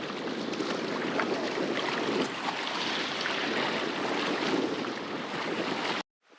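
Water splashing and churning as a crowd of fish thrashes at the surface for fish food, with wind on the microphone; it cuts off suddenly about six seconds in.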